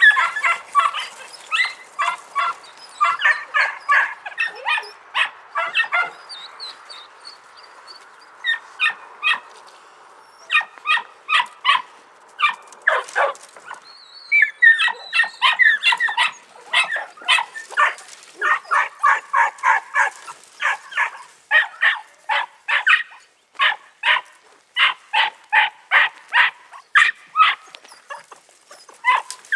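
Podenco puppies yapping: rapid, high-pitched barks, two or three a second, that fade into a lull for a few seconds and then pick up again.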